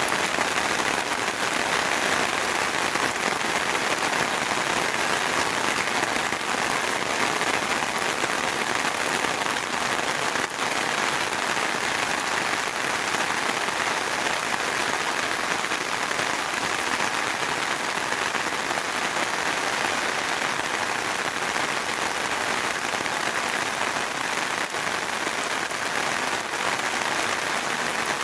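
Heavy rain pouring steadily onto the grass and the fabric canopy overhead, an even hiss that does not let up.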